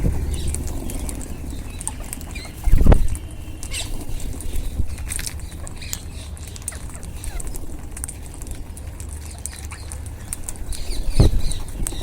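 A flock of wild Indian ringneck parrots feeding: a steady patter of small clicks and ticks from beaks pecking and cracking food, with a few short calls. Two loud dull thumps, one about three seconds in and one near the end.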